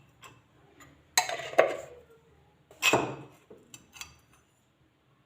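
A spoon clinking and scraping against a dish as honey is spooned out: two louder clatters, about a second in and about three seconds in, then a few light taps.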